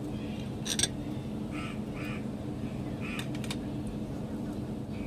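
Hand-eating sounds: rice and curry mixed by fingers, chewing and lip smacks, with a sharp click about a second in and a few quicker clicks a little after three seconds, over a steady low hum.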